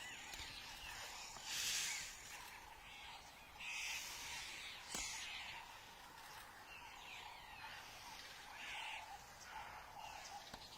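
Faint outdoor bush ambience with birds calling, broken by a few short bursts of hiss, the loudest a little under two seconds in, and one sharp click about five seconds in.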